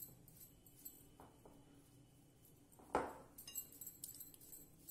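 Hands rubbing oil into flour in a glass mixing bowl: light clinks of bangles and the bowl, with one sharper knock against the bowl about three seconds in and a short jingle of bangles just after.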